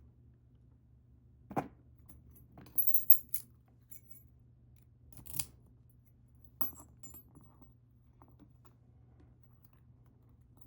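Small metal tools and padlock parts clinking and tapping as an ABUS 72/40 padlock is taken apart: a knock about a second and a half in, a bright cluster of clinks around three seconds, then single clicks at about five and a half and seven seconds.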